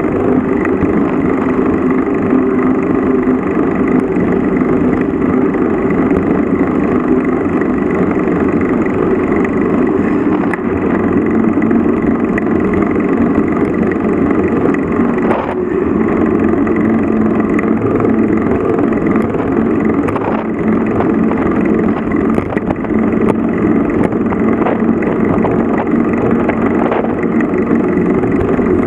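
Vehicle engine running steadily while under way, heard on board, with a thick rush of wind and road noise. Its low tone shifts a little now and then with engine speed.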